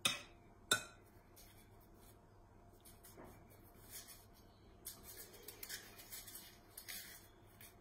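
Faint kitchen handling sounds as muffin batter is put into silicone cups in a muffin tray: two sharp clicks near the start, then light scraping and tapping in the last few seconds.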